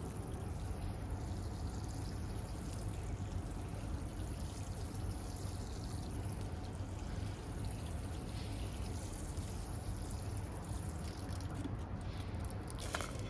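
Water trickling and pouring steadily over a low, even hum, with a few short crunching rustles near the end.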